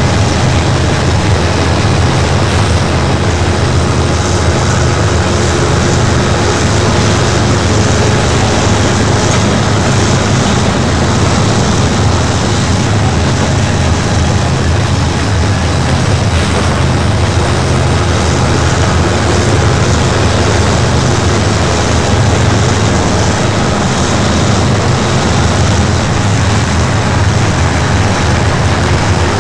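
Steady rumble and rolling noise of a freight train's cars passing, with no horn or other sudden sounds.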